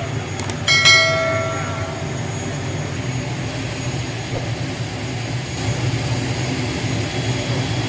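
Wings Air ATR 72 turboprop engines and propellers running with a steady low drone. About a second in, one metallic clang rings out briefly over it.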